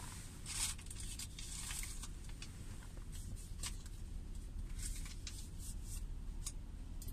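Low steady rumble inside the cabin of a car idling in stopped traffic, with scattered light ticks and patters of raindrops hitting the car. The drops come in a bunch from about half a second to two seconds in, then more sparsely.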